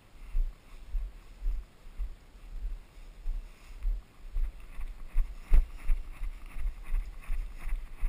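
Footfalls of a person running on a dirt trail, thudding into the body-worn camera about two to three times a second, with one sharper knock about halfway through. Dry grass brushes past with a light swishing in the second half.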